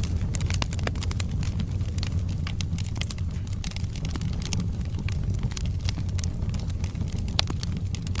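Wood fire burning in a fireplace: a steady low rumble of flames under frequent sharp crackles and pops from the burning logs, with one louder pop near the end.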